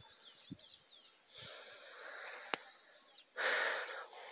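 Quiet rural outdoor ambience with faint, scattered bird chirps, a single click about two and a half seconds in, and a short soft hiss of noise about three and a half seconds in.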